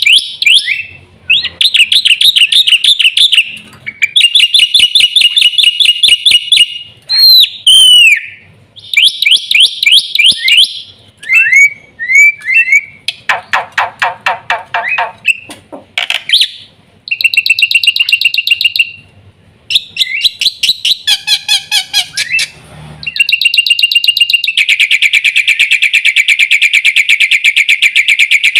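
Jalak putih (black-winged myna) singing loudly: a string of varied phrases made of fast repeated chattering notes and a few slurred, sliding whistles, ending in one long, unbroken, rapid rattle over the last several seconds.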